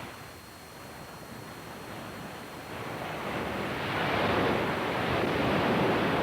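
Ocean surf: a wave rushing in and breaking, swelling from about three seconds in to a loud, steady rush near the end.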